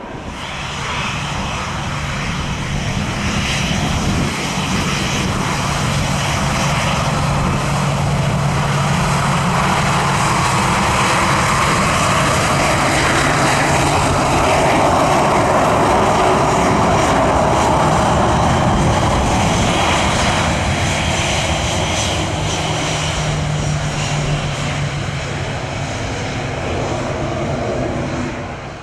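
Ryanair Boeing 737-800's CFM56 jet engines running at high power as the airliner rolls along the runway past the listener. The jet noise builds over the first few seconds, is loudest around the middle, and eases slightly near the end, with a low steady drone underneath.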